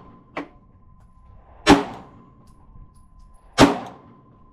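Gunshots fired one at a time at steel targets: two loud shots about two seconds apart, with a fainter sharp crack just after the start.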